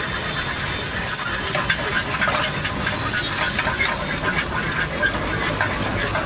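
Egg sizzling in a hot frying pan over a gas burner, with a metal spatula scraping and clicking against the pan now and then, over a low steady hum.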